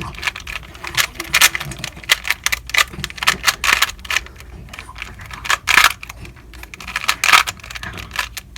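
3x3 speedcube being turned quickly through a solve: rapid, irregular clacking of plastic layers in quick bursts with short pauses. Really noisy.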